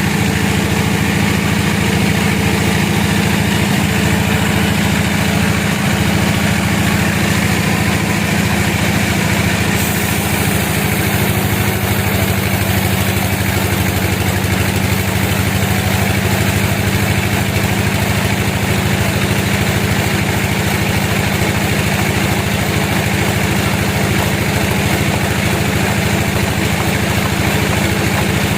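Sawmill engine running steadily, its note shifting slightly about eleven seconds in.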